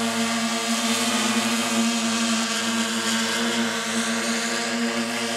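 A motor or engine running steadily at constant speed, a pitched hum over a hiss, with no change in speed.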